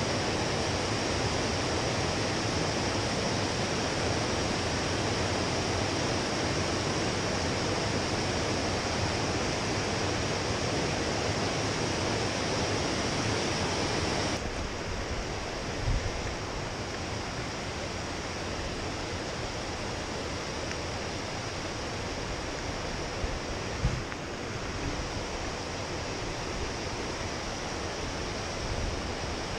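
Steady rush of flowing water from a spring-fed trout stream, dropping a little in level about halfway through, with a couple of faint low bumps.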